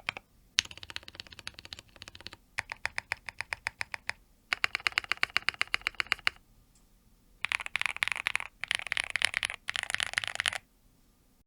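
Typing on an Everglide SK68 mechanical keyboard with Zaku switches and PBT keycaps: fast runs of key clacks in several bursts, with a pause of about a second in the middle before the last, denser bursts.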